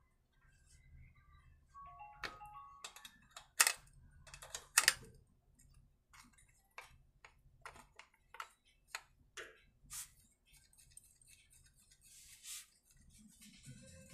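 Light metal clicks and taps of an open-end wrench and small nuts as a carburetor is bolted onto a petrol generator engine, mixed with knocks of a plastic air-filter adapter being fitted. A short ringing note sounds about two seconds in.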